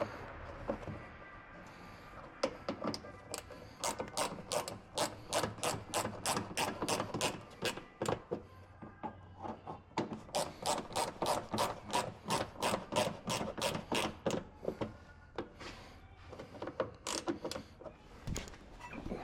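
Ratchet wrench with a socket clicking rapidly as the handle is swung back and forth, about four or five clicks a second, in two runs with a short pause between them and a few scattered clicks near the end.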